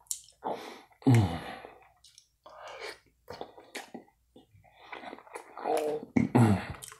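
Close-miked chewing of a forkful of chicken and rice casserole: moist mouth and lip smacking, with two short voiced hums, about a second in and again near the end.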